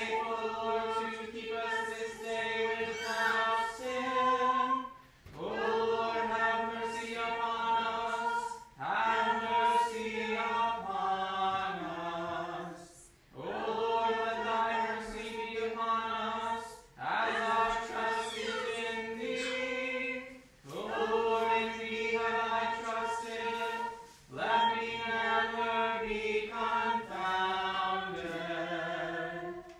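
Unaccompanied voices chanting a canticle in the Morning Prayer service, verse by verse. Each phrase of about four seconds is held on one reciting note and then moves to a short cadence, with a brief breath between phrases.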